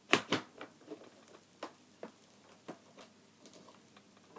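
Latches of a hard plastic gun case snapping open in two sharp clicks right at the start, then scattered light clicks and taps as the lid is lifted and the packed contents handled.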